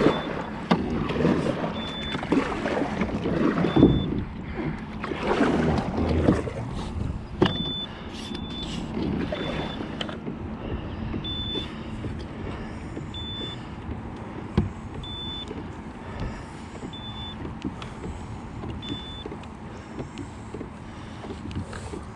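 Kayak under way on the water: irregular water and handling noise, busier over the first several seconds and then steadier. A short high electronic beep repeats about every two seconds.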